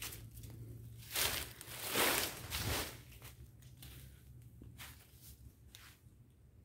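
Footsteps and leaf rustling as someone walks among banana plants. A cluster of loud rustling bursts comes between about one and three seconds in, followed by a few fainter ones, over a low hum.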